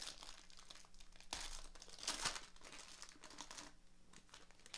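Plastic wrapping on a box of baseball trading cards crinkling and tearing as it is unwrapped, in irregular bursts, the loudest about two seconds in.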